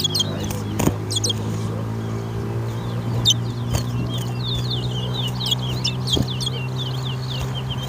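Caged towa-towa seed finches singing in a song race: stretches of rapid, short slurred chirps repeated in quick runs, the 'clicks' and 'rackles' that are counted toward the win. A steady low hum runs underneath.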